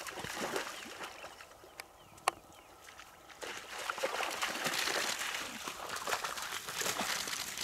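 African wild dogs splashing and running through a shallow muddy pool: irregular sloshing of water, louder in the second half, with one sharp click a little over two seconds in.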